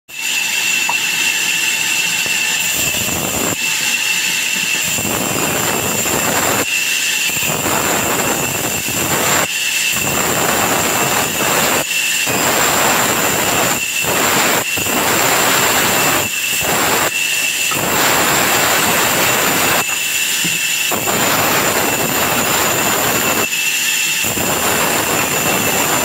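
Vertical band saw running with a steady high whine while its blade cuts raw log sections. A coarse rasping noise comes in each time the wood is fed through and drops back between passes, about ten cuts of one to two seconds each.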